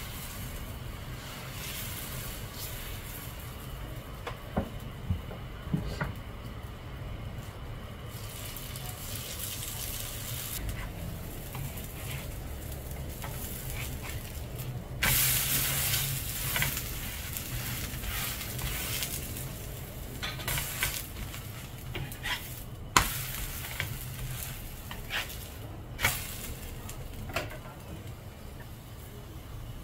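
Thick lentil-and-rice dosa batter sizzling on a hot tawa as it is spread with a ladle and pressed, with scattered scrapes and sharp taps. The sizzling swells louder for a second or two about halfway through.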